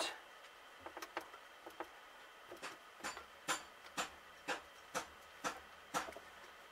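Light clicks from the parts of a dismantled GAZ-66 carburetor being handled while its paper gasket is eased off: a few scattered clicks, then a run of sharp ticks about two a second in the second half.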